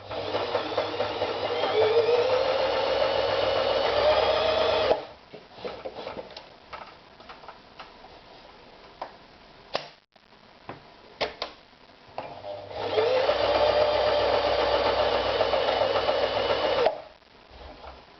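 Toyota EX 390 electric sewing machine running in two bursts of stitching, each about four seconds long, its motor pitch rising as it speeds up and then cutting off sharply. Between the two runs come scattered clicks and knocks.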